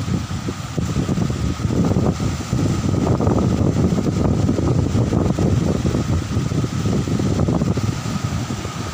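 Wind buffeting the microphone in a loud, steady low rumble, over small waves washing onto a sandy beach.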